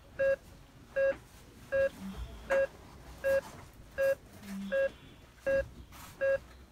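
A short electronic beep of one steady pitch repeating evenly, about every three-quarters of a second, nine times, with a few faint clicks between the beeps.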